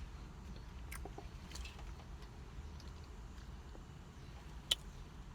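Faint mouth sounds of someone chewing a bite of moist chocolate layer cake, with a few soft clicks and one sharper click near the end, over a low steady hum.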